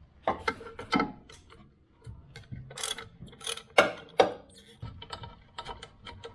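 A socket ratchet clicking in short, irregular runs, with a couple of sharper metal knocks about midway, as the bolt holding the brake line to the front upper control arm is undone.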